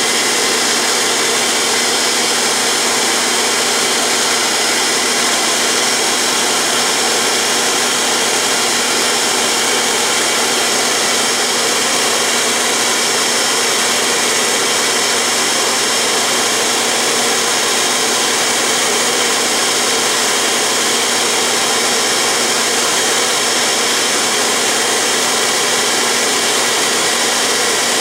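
Dumore toolpost grinder running steadily on a lathe, its wheel grinding the conical point of a steel lathe center and throwing sparks; a loud, even motor whine and grinding hiss.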